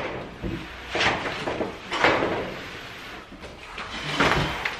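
A Husky 52-inch steel top tool chest is shifted and walked along by hand. Several separate noisy scuffs and scrapes come from the chest, its packaging and feet shuffling on concrete.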